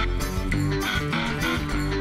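Guitar-driven background music with a steady beat.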